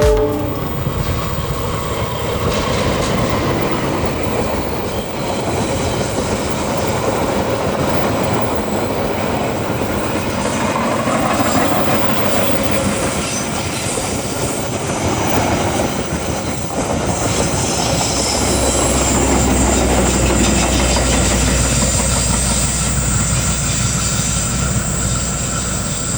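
Train running along the rails, its wheels clattering over the track; a thin, high, steady squeal joins in about two-thirds of the way through.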